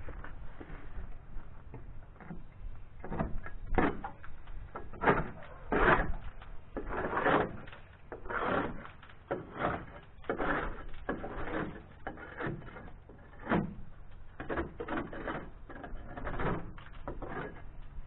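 Hand scraper rasping against a boat's fouled hull bottom in irregular strokes, roughly one a second, scraping off the growth that has built up on it.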